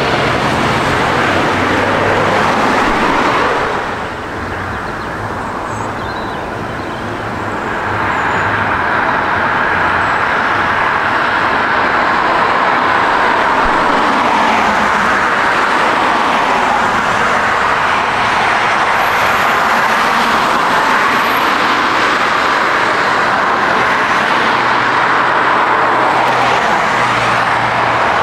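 Jet airliner engines running steadily on a landing approach, chiefly an Airbus A380-800's four turbofans. The level drops briefly about four seconds in, then a steady jet roar builds and holds.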